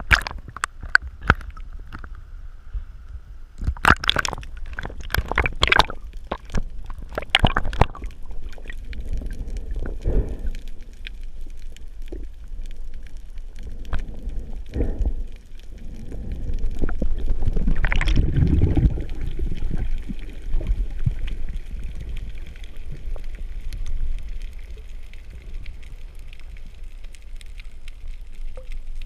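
Underwater water noise picked up through a GoPro's waterproof housing during a breath-hold dive: a constant low rumble of moving water with many sharp clicks and knocks in the first part, and a louder gurgling surge about two-thirds of the way through.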